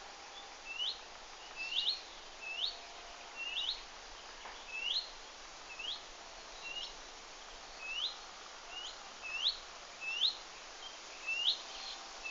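A bird calling over and over: short, high, rising chirps, about one a second.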